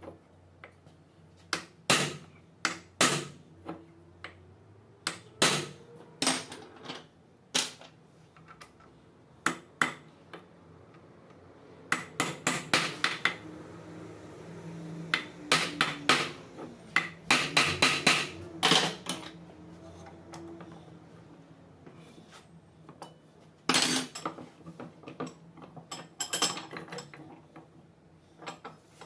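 Hammer striking the steel field-coil housing of a tractor's Mahle starter motor: sharp metallic knocks, single or in quick clusters, with pauses between.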